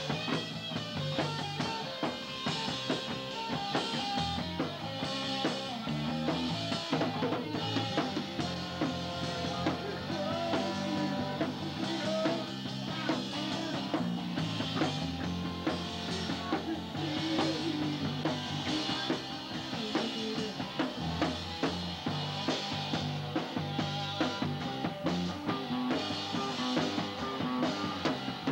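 Rock band playing a song live: distorted-free electric guitar lines over bass guitar and a drum kit keeping a steady beat with regular cymbal strokes.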